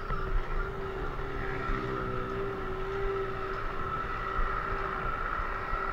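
Moving-ride noise: wind buffeting the microphone over a low road rumble, with a steady humming drone held at one pitch.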